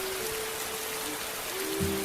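Steady rain hissing and pattering, with soft, slow music of long held notes over it; a lower note comes in near the end.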